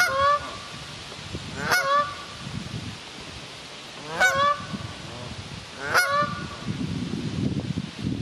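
Canada goose honking: four loud honks about two seconds apart, each dropping sharply in pitch.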